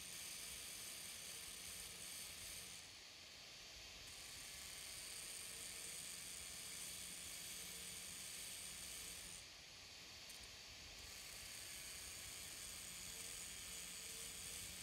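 Angle grinder's abrasive disc grinding the steel edge of a knife blade: a steady gritty hiss that eases twice, about three seconds in and again near ten seconds, as the disc bears less on the metal.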